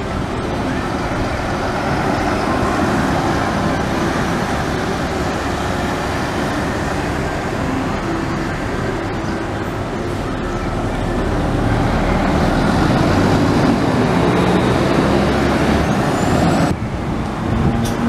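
Diesel buses driving past one after another: a Hino Selega and a Mitsubishi Fuso Aero Bus coach, then Hino Blue Ribbon and Hino Rainbow city buses, engines running over traffic noise. The sound is loudest a little past the middle, then drops suddenly near the end.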